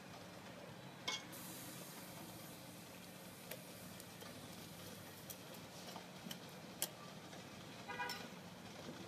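Metal ladle stirring liquid in a small stainless steel bowl, knocking against the bowl's side with a few light clinks and one ringing clink near the end. A steady low hum and hiss run underneath.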